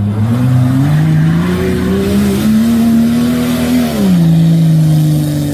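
Off-road SUV engine revving: the pitch climbs over the first two seconds or so, holds high, then drops sharply about four seconds in and runs on steadily at the lower pitch, as the vehicle drives across a steep slope.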